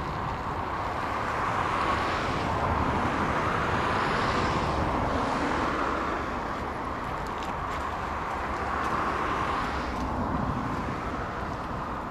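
Road traffic noise: the hiss of passing vehicles swells and fades twice over a steady background.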